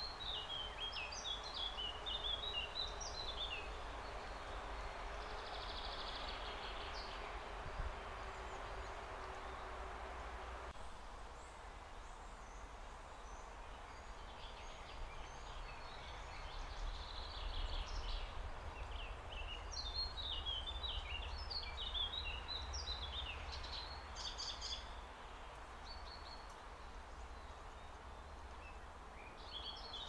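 Small songbirds chirping at a garden feeder in quick clusters of short, high calls, with pauses between the bouts, over a steady low background noise. A faint hum in the background stops about a third of the way in.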